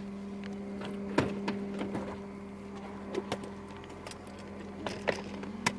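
Steady low hum of an idling car, with a few scattered clicks and knocks; the sharpest comes a little over a second in and another just before the end.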